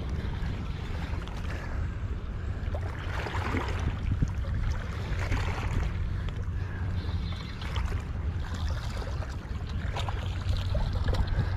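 Steady wind rumble on the microphone with harbour water washing against the rocks, and a few faint clicks, most around ten seconds in.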